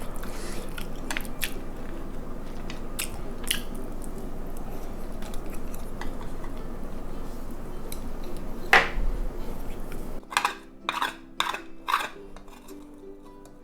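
Eating sounds with utensils clicking and clinking against dishes over a steady background hiss, one louder clink near nine seconds in. About ten seconds in the background cuts out and light music starts, with a few more clinks over it.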